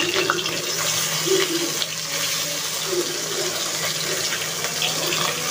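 Bata fish sizzling as they fry in hot oil in a kadai, a steady crackling hiss. A metal spatula clinks and scrapes here and there as the fish are turned.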